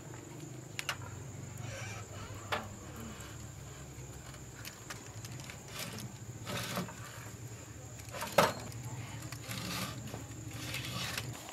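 Door of a small stainless-steel gas oven being opened and a metal baking tray pulled out over the rack, giving a few sharp metal clicks and knocks, the loudest about eight seconds in. A steady low hum and a steady high tone run underneath.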